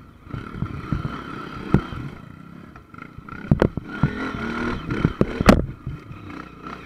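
Off-road motorcycle engine revving up and down unevenly while climbing over tree roots on a rough dirt trail, with several sharp knocks as the bike bumps over them.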